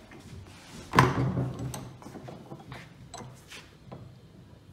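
Cast-iron bench vise being worked to clamp a wooden clothespin half: a loud metal clunk about a second in, then several lighter clicks and knocks as the handle is turned and the jaws close on the wood.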